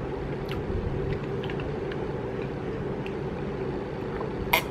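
Electric fan running with a steady hum, with faint small mouth clicks from chewing early on. Near the end a glass of iced tea with ice clinks once, sharply, as it is tipped up to drink.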